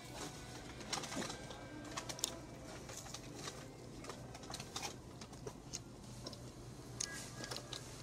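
Scattered soft clicks and crinkles from eating and handling fast-food paper packaging at a table, over a low steady hum.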